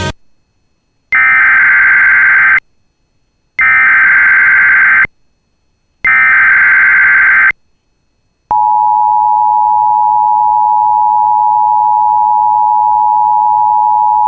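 Emergency Alert System SAME header: three identical bursts of digital data tones, each about a second and a half long, a second apart. About eight and a half seconds in, the steady alert tone starts, just under 1 kHz, the attention signal that comes before the spoken alert.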